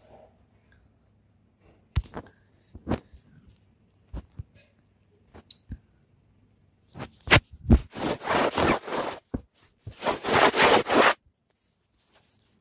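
Powdery freezer frost crunching: a few scattered clicks and taps, then two dense, crackly crunching stretches of about a second and a half each in the second half.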